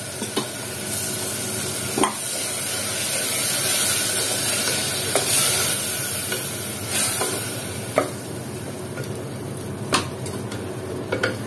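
Tomato-and-herb masala with a ladle of yogurt just added, sizzling in a pressure cooker as it is stirred with a wooden spatula. The spatula knocks against the side of the pot now and then.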